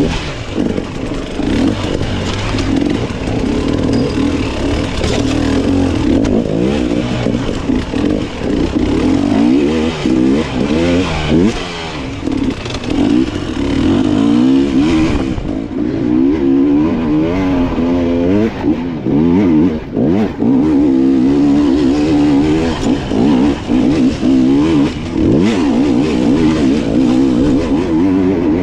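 Two-stroke enduro dirt bike engine revving up and down constantly under throttle, the pitch wavering rapidly as the rider works through technical terrain.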